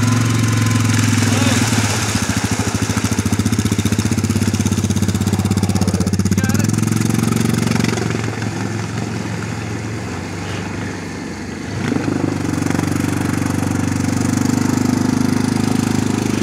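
Yamaha Grizzly 700 ATV's single-cylinder four-stroke engine running under throttle as it wades through deep water. The engine drops back for a few seconds around the middle, then picks up again about twelve seconds in, with water churning around the wheels.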